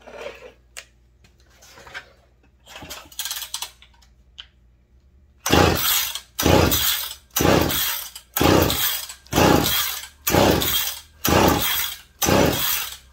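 McCulloch PM 700 chainsaw being pull-started, about one pull a second: each yank of the recoil starter cranks the two-stroke engine in a loud rasp that falls away, and the engine does not catch, which the owner takes for flooding. Light clinks of handling the saw come before the pulls.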